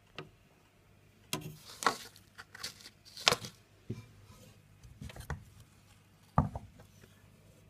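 Hand handling and moving reptile-tank decor over coconut-fibre substrate: irregular rustles, scrapes and several sharp knocks.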